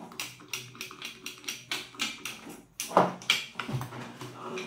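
Plastic-and-metal clicking and tapping as the pan handle of a Digitek DTR 550LW tripod is twisted and worked in its threaded socket on the pan head: a quick, uneven run of clicks, about three or four a second, with a louder knock about three seconds in.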